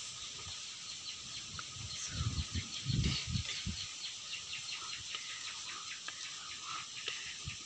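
Rural outdoor ambience: a steady high buzz of insects with a fast, even run of small chirps, about six a second, and a few low thuds two to three and a half seconds in.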